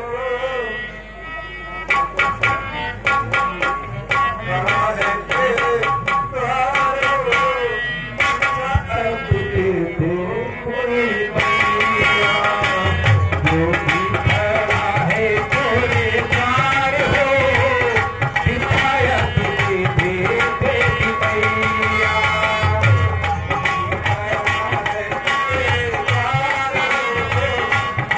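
Tabla drumming with a wavering melodic line over it: Indian devotional stage music. The drumming grows busier and fuller about eleven seconds in.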